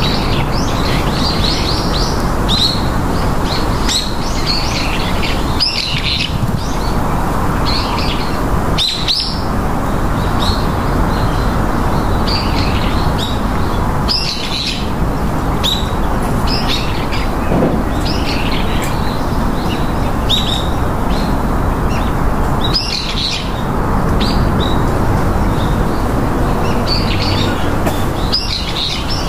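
Several small birds chirping and twittering continually, over a loud, steady rushing noise.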